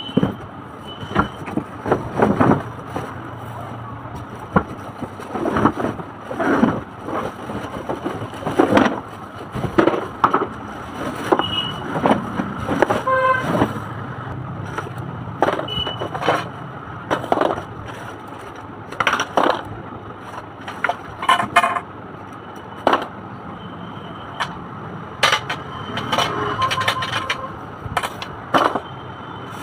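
Unboxing of a toddler's push car: cardboard flaps and plastic wrapping rustling and scraping, with irregular knocks of plastic parts against the box and tiled floor, over a steady low hum.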